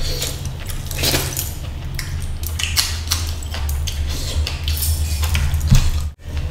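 Bare hand mixing rice into fish curry on a plate, with stacked metal bracelets and rings jingling and clicking. A steady low hum runs underneath.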